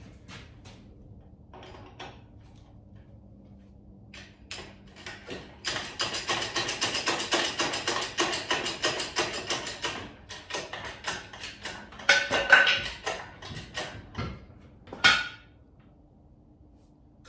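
Mechanic's hand tools at work on a car during engine and transmission removal. Scattered clicks give way to about four seconds of rapid clicking, then come two loud metallic clanks with a brief ringing tone, a few seconds apart.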